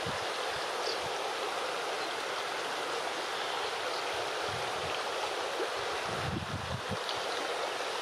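Shallow, rocky river running steadily over and between stones, an even rushing hiss of water.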